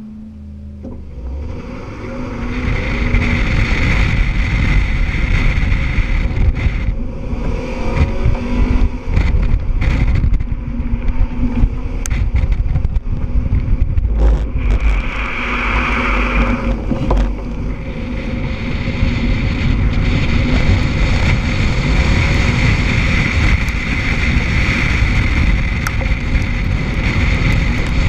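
2006 Scion tC's 2.4-litre four-cylinder engine pulling hard off the start line, rising over the first two seconds, then running at high revs with constant throttle changes through an autocross course. Heard from outside the driver's door, with wind buffeting the microphone.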